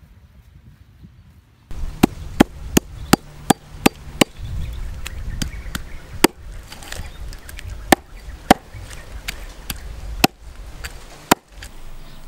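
A knife chopping a snake on a wooden chopping block: sharp chops that start about a second and a half in, about three a second at first, then more spaced and irregular, with the last one near the end.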